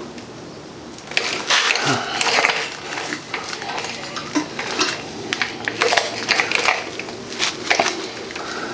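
Steel wire being wrapped and twisted tight with a hand wire-clamp tool: irregular metallic clinks, scrapes and rattles, starting about a second in.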